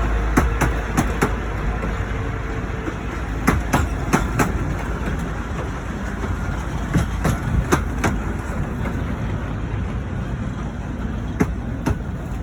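Running noise of a 15-inch gauge miniature railway train on the move: a steady rumble with groups of sharp clicks as the wheels cross rail joints. It cuts off suddenly at the end.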